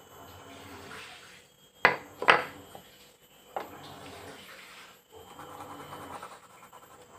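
A small wooden block knocked down on a tabletop, twice in quick succession about two seconds in and once more a little later. Between the knocks comes the dry scratch of a carpenter's pencil drawing marking lines on the wood.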